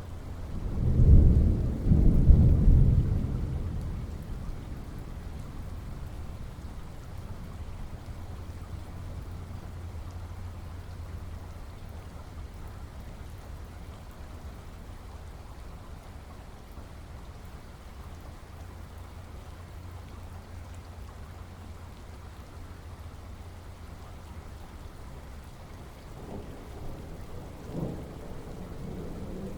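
Thunderstorm: steady rain falling, with a loud low roll of thunder in two swells about a second in that dies away over a few seconds. Fainter rumbles of thunder come back near the end.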